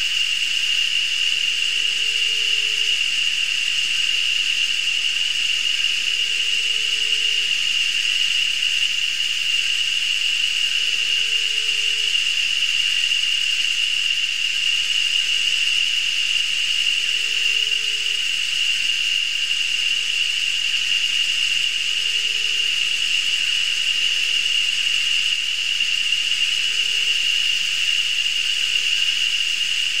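Steady, high-pitched rainforest insect chorus, a continuous shrill drone with no breaks, with a faint short low note repeating every few seconds beneath it.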